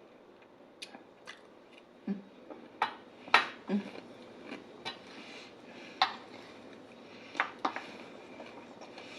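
Close-up eating of a salad: a fork clicking and clinking irregularly against the dish, about a dozen sharp clicks, with two short low sounds from the eater about two and three and a half seconds in.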